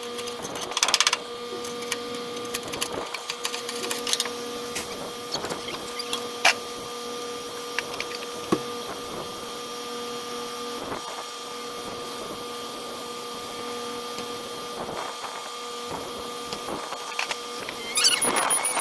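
A machine running with a steady hum, with scattered metal clicks and knocks over it. Near the end it gets louder, with a rising whine.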